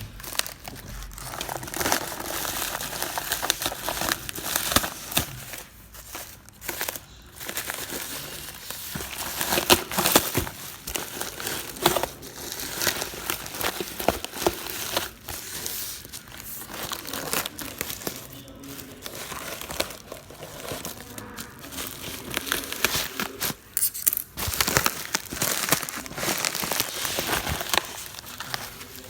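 Plastic packaging being unwrapped by hand: irregular crinkling and crackling of the wrapping, with occasional tearing sounds, as a boxed part is unpacked.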